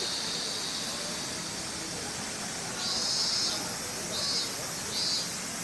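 High-pitched insect buzzing that comes and goes in pulses, a long stretch near the start and then shorter bursts about every second. Faint voices murmur underneath.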